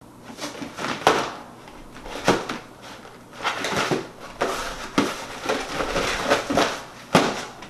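Cardboard box of chewy granola bars being handled: picked up, turned over and set down on a plastic crate, giving several sharp knocks with the rustle of the packed bars in between.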